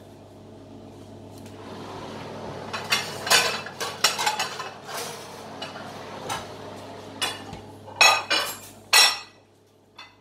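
Pots, pans and metal utensils clattering as a stir fry is dished up: a run of clinks and knocks, with two loud clanks near the end. A steady low hum runs underneath and cuts off about nine seconds in.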